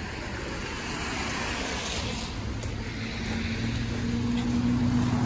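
Street noise with a motor vehicle's engine running close by. Its steady low hum comes in about halfway through and grows louder.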